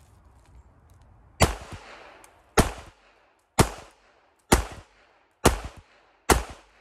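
Six shots from a Glock 42 pistol chambered in .380 ACP, fired at a steady pace about a second apart, each a sharp crack with a short fading tail.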